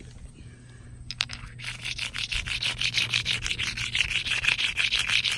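Jasper whetstone pendant rubbed rapidly back and forth on rough concrete, its side used like a file to dress the stone: a fast, even scraping of about five or six strokes a second that starts after a second and a half, with a few light clicks before it.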